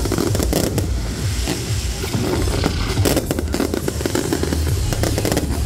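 Fireworks display: aerial shells bursting in quick succession with dense crackling and repeated bangs, over a deep low rumble.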